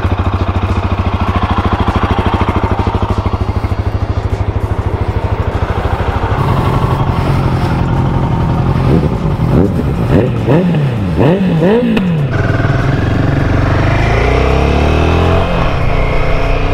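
Royal Enfield Himalayan 450's single-cylinder engine idling. About two-thirds of the way through it is blipped several times in quick succession, then revs rise as the motorcycle pulls away and runs on steadily.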